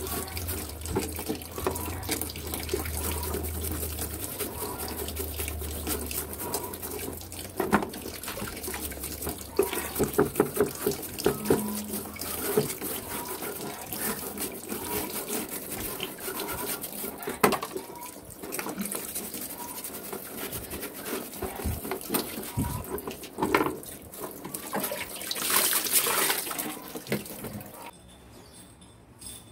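A brush scrubbing a fan guard in a basin of soapy water: sloshing and splashing with the scratch of bristles and sharp knocks of the guard against the basin. The sound drops away much quieter shortly before the end.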